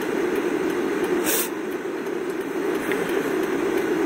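Steady drone of a moving vehicle's cabin, heard from inside, with a short hiss about a second in.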